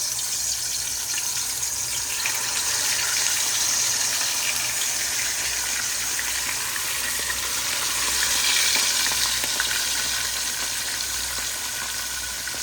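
Pomfret fish frying in hot oil in a pan: a steady sizzle with fine crackling throughout.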